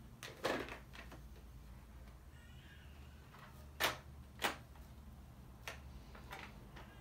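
Clicks and short scrapes of a carbon-fibre motorcycle helmet and its visors being handled while it is worn: a scrape about half a second in, two sharp clicks around four seconds in, and a lighter click near the end.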